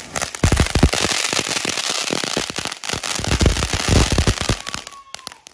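Firecrackers going off in a rapid, dense run of cracks and bangs for about five seconds, with a couple of brief lulls, then stopping.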